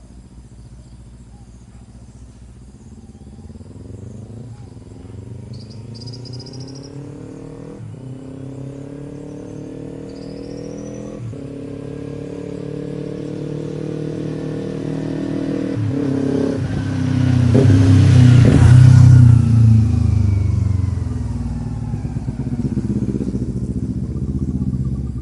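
Kawasaki Ninja 300 parallel-twin engine through a ZARD full exhaust with the silencer removed, accelerating hard up through three gear changes as it approaches. It is loudest as it passes about three-quarters of the way through, then drops in pitch and fades as it rides away.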